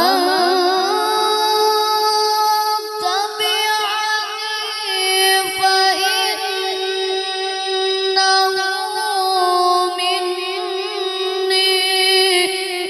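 A boy reciting the Qur'an in the melodic tilawah style into a microphone. He draws out one long, unbroken, ornamented phrase with a wavering pitch.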